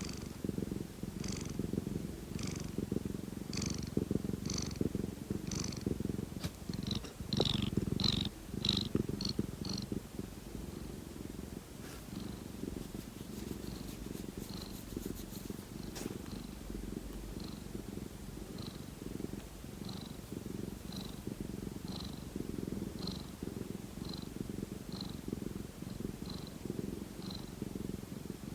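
Pet cat purring steadily and close up, a continuous low rumble with a faint high squeak recurring about once a second; for a few seconds about a quarter of the way in the squeaks come quicker and louder.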